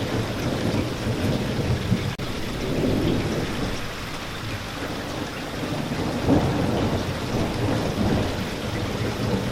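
Steady rain with a low thunder rumble underneath that swells and eases, with one very brief dropout about two seconds in.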